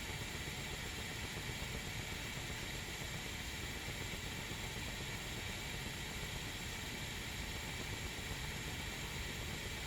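Stovetop tea kettle heating water, a steady hiss with a low rumble; the water is still working toward the boil and the kettle is not yet whistling.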